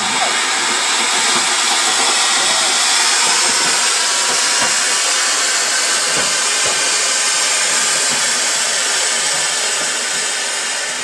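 Flowerpot (anar) fountain firework hissing steadily as it sprays sparks, easing off a little near the end.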